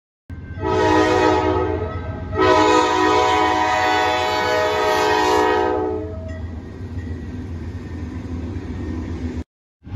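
Diesel freight locomotive's multi-tone air horn sounding at a grade crossing: a short blast, then a long one. After the horn the locomotives' engines and the train keep up a steady low rumble as they pass, until the sound cuts off suddenly shortly before the end.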